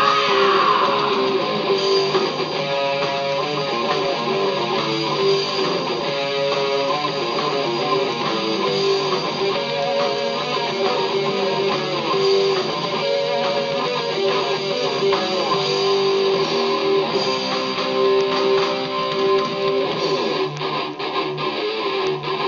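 Doom metal song playing: distorted electric guitars and bass, loud and steady.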